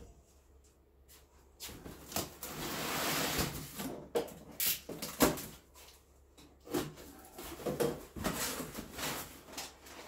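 Cardboard parts box being handled and opened: a long scrape of cardboard about two seconds in, then a sharp knock about five seconds in and a string of lighter knocks, flap rustles and parts shifting inside the box.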